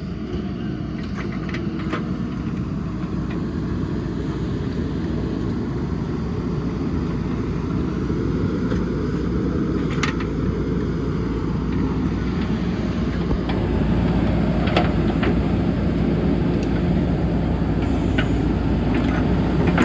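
JCB backhoe loader's diesel engine running steadily, growing a little louder in the second half, with a few short knocks.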